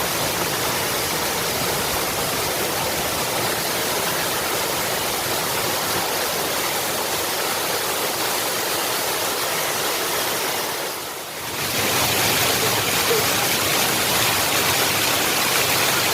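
Gangadhara hill stream swollen by heavy rain, floodwater rushing and splashing in a steady roar of water. The sound drops briefly a little past halfway, then comes back slightly louder.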